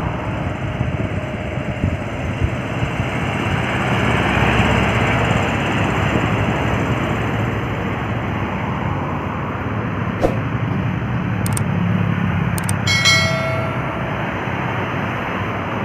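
Heavy road traffic, trucks and buses, driving past with a steady engine rumble and road noise, louder around four to six seconds in. A short horn toot sounds about thirteen seconds in.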